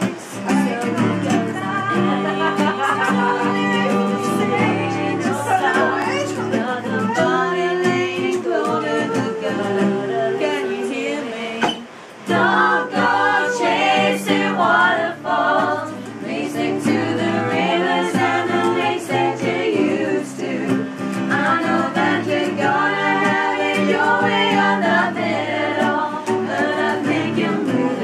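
A woman singing a song to an acoustic guitar strummed beside her, with a short break in the voice about twelve seconds in.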